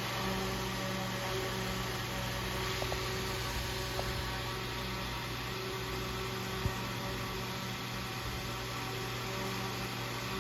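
Antique Emerson Northwind 44C AC/DC table fan running steadily: a low motor hum under an even rush of air.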